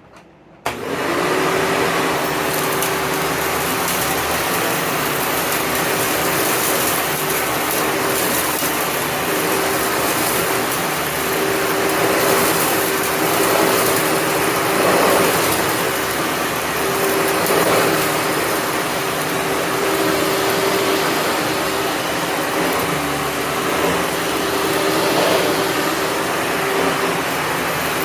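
A 12-amp upright vacuum cleaner switched on under a second in. Its motor spins up quickly, then runs steadily as a loud rush of air with a constant hum.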